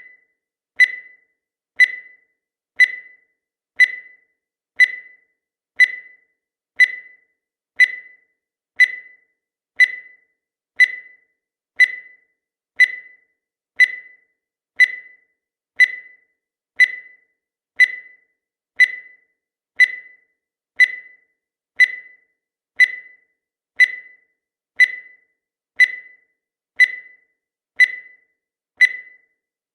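Countdown timer sound effect: a short beep at about 2 kHz once every second, each starting sharply and fading fast.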